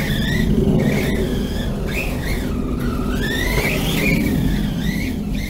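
Brushless electric motor of a Remo Hobby Dinosaurs Master 5 RC monster truck, running on a 3S battery, whining as it drives. The pitch rises and falls over and over with the throttle, over a steady low rumble.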